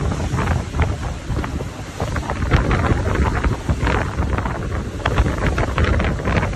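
Wind buffeting the microphone in a steady low rumble, over the rush and irregular splashing of rough sea foaming past a moving ship.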